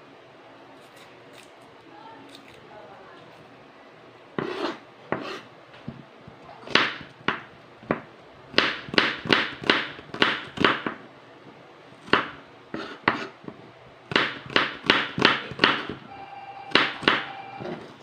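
Kitchen knife chopping a red onion on a wooden cutting board. The blade knocks sharply on the board, starting about four seconds in, in short runs of quick strokes with brief pauses between.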